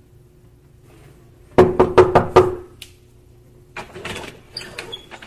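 Quick knocking on a door: a burst of about five rapid knocks in the middle, over a faint steady hum, followed by fainter rustling noises.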